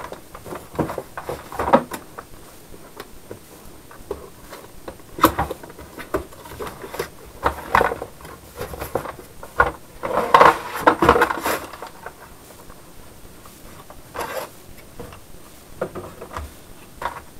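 Hands unpacking a cardboard box: flaps folded back, cardboard and packaging rustling and scraping, and light knocks as the plastic parts of a hand-pump brake bleeder are lifted out and set down. The handling comes in irregular spells, busiest a little past the middle.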